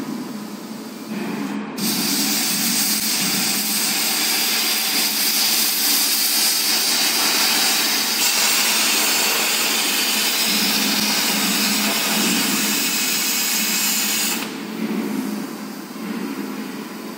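CNC plasma cutting torch cutting a steel H-beam: a loud, steady hiss that starts suddenly about two seconds in and cuts off abruptly about fourteen seconds in, over a low machine hum.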